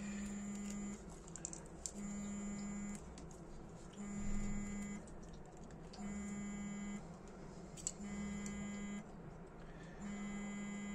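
An electronic buzzer sounding a low buzzing tone in an even on-off pattern, about one second on and one second off, with a few light clicks and rustles of handling between the beeps.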